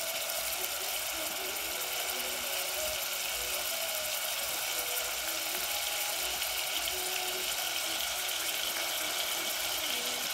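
Sliced red onions sizzling steadily in hot oil in a metal pot on a gas burner.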